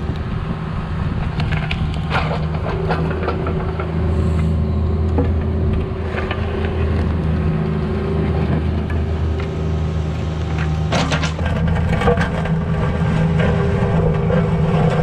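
Cat 304 mini excavator's diesel engine running steadily while it digs, with scattered knocks and scrapes as it works in the dirt, thickest about eleven seconds in.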